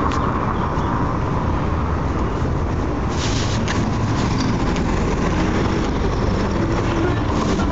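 A vehicle engine running steadily: a constant low rumble, with a few short sharp clicks about three seconds in and again near the end.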